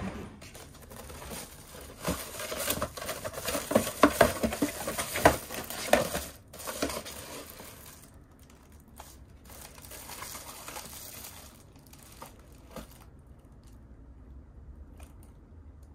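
Crinkling of a clear plastic bag wrapped around a small flashlight package as it is handled. The crinkling is loud in short crackles through the first half, then turns to softer rustling that dies away.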